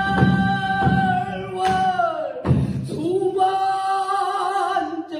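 Pansori-style singing: a voice holding long notes that slide in pitch, with a few low drum strokes beneath.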